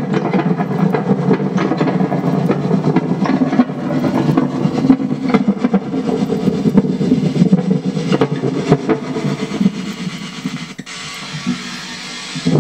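Amplified playback from a cassette tape head riding on VHS tape wrapped around a spinning LP: a dense, garbled, low-pitched sound full of clicks and crackle. It drops quieter about ten seconds in and comes back up near the end.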